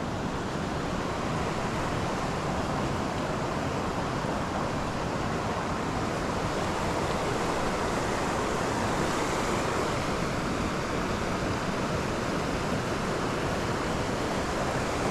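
Steady rushing of a mountain creek's flowing water, an even noise without breaks.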